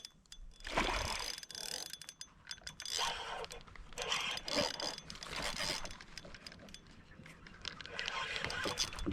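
Fishing reel being worked while fighting a hooked redfish: irregular clicks and short rattles from the reel and tackle.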